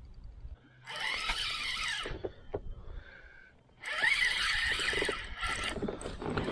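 Spinning reel whirring in two spells as line is cranked in, a short one of about a second and a longer one of two to three seconds.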